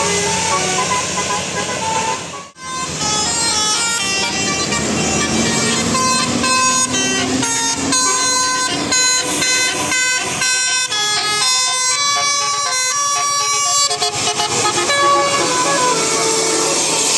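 Bus telolet air horn playing a fast tune of short notes stepping up and down in pitch, over vehicle engine noise, with a brief break about two and a half seconds in.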